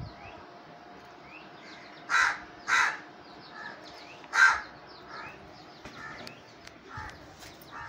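Crows cawing outdoors, three loud harsh caws about two, three and four and a half seconds in, with a few weaker caws and faint short chirps between them.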